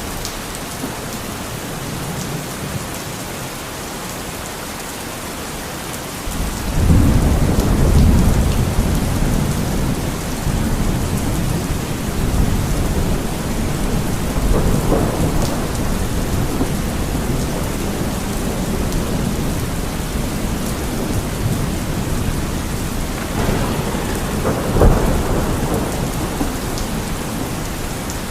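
Steady heavy rain falling, with rolls of thunder: a deep rumble breaks in about six seconds in and fades slowly, and more thunder swells near the middle and again near the end.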